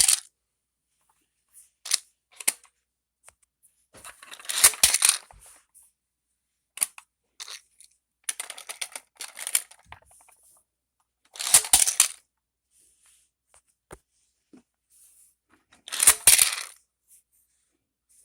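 Small plastic dolls and toys being handled, clicking, clattering and rustling in several short bursts a few seconds apart.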